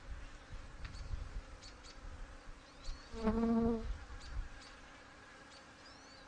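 Honey bees buzzing around an open hive. About three seconds in, one bee flies close past the microphone, a brief loud buzz lasting about half a second.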